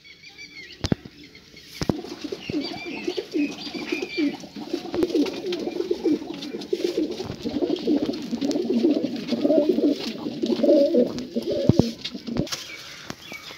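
Several domestic pigeons cooing at once, overlapping coos that rise in strength through the middle and stop about a second before the end. A few sharp knocks come in the first two seconds.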